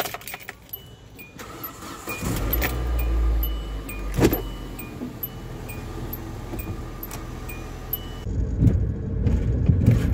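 A Hyundai car's engine starting about two seconds in and then idling, with a regular ticking of about two a second and a sharp thump about four seconds in. The engine note rises near the end as the car pulls away.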